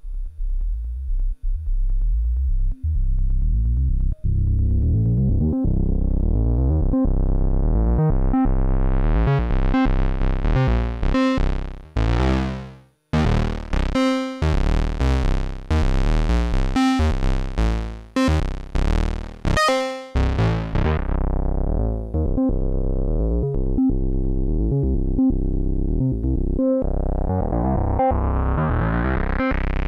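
Dreadbox Typhon monophonic analog synthesizer playing a repeating low sequenced note pattern, its filter slowly sweeping open until the sound is bright and buzzy. It cuts out briefly about halfway, the filter closes down again, then opens once more near the end.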